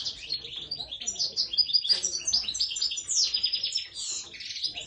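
Small caged songbird singing a fast, continuous twittering song of high chirps and trills.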